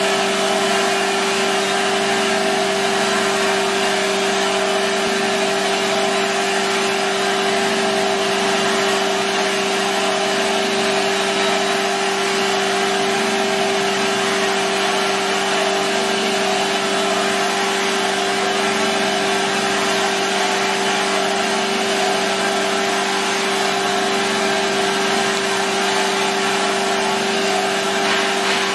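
Belt polishing machine grinding the inside of a stainless steel dish head, its abrasive belt running over a contact wheel against the metal: a steady whine over a dense, even hiss, unbroken throughout.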